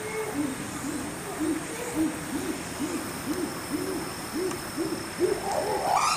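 Chimpanzee pant-hoot: a series of low hoots, about two a second, that quicken and rise in pitch toward the end as the call builds to its climax.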